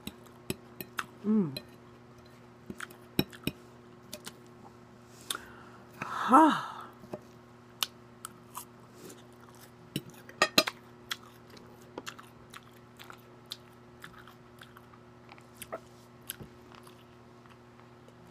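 Close-up chewing of crunchy salad lettuce, with wet mouth clicks and the fork tapping a glass plate. A short voiced sound comes about six seconds in.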